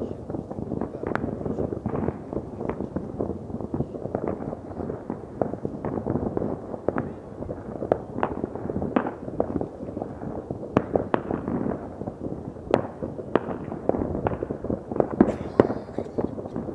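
Many distant fireworks and firecrackers going off at once across a town, blending into a continuous rumble of overlapping bangs, with frequent sharper cracks standing out at irregular intervals.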